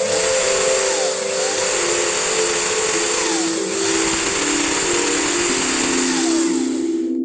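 A loud, steady whirring, like a small power tool or motor running, over a background music melody. The whirring cuts off suddenly just before the end.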